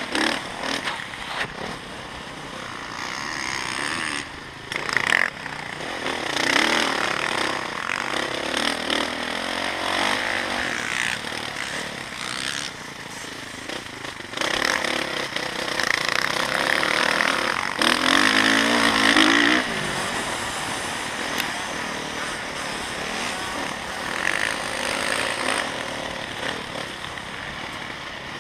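Motocross dirt bike engine heard from on board while riding the track, revving up and down through the corners and straights, loudest from about halfway in.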